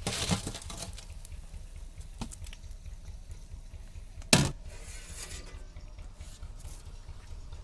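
Steel cooking utensils clanking: a rustle and clatter at the start as fried pakoras are tipped from a perforated metal skimmer into a steel colander, a light knock about two seconds in, and one sharp, loud clank about four seconds in, over a low steady rumble.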